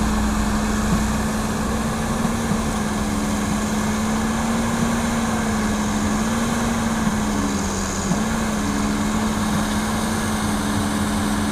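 Hitachi excavator's diesel engine running steadily as it digs and loads soil, its pitch wavering slightly and dipping briefly about eight seconds in, with a few light knocks.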